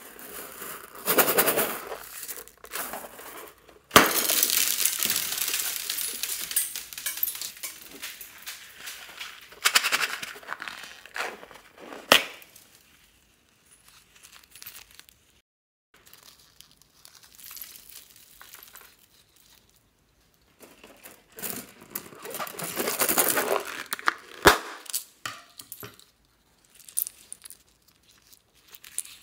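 Hands handling rubber balloons filled with small hard plastic toys: rubber crinkling, scissors cutting the balloons open, and the little pieces clattering out, with several sharp clicks.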